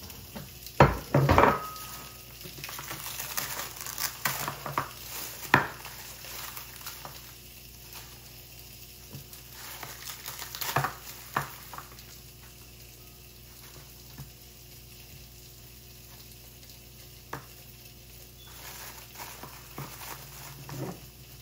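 Food being handled at a kitchen counter: a plastic bag crinkling and a few sharp knocks of containers and dishes, over a faint steady hiss.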